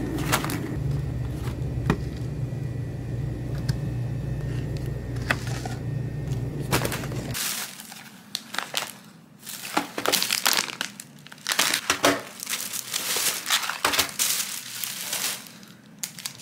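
A steady low hum with a few sharp clicks, cutting off suddenly about seven seconds in. Then a plastic shopping bag and snack packages crinkling and rustling as they are handled and set down on the table.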